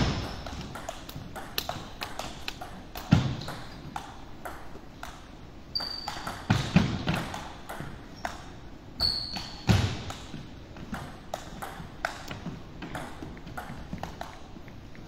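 Table tennis ball clicking in a long rally, struck by the bats and bouncing on the table several times a second. Low thuds of players' feet land every few seconds, and twice a short high squeak comes from shoe soles on the wooden floor.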